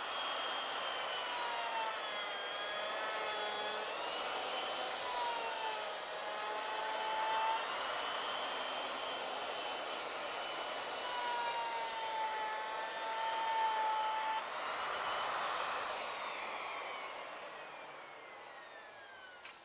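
Router in an ornamental mill cutting across a rough board to mill it flat, its motor whine sagging and recovering in pitch as the bit takes the wood. Near the end it is switched off and its whine falls away as it spins down.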